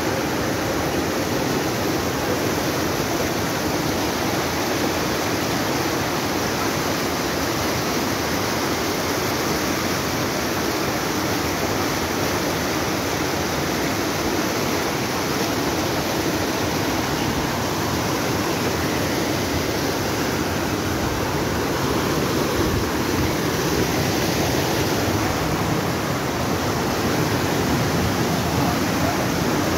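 Flood-swollen creek, muddy after heavy rain, rushing over rocks and boulders in a steady, even rush of water that grows a little louder in the last few seconds.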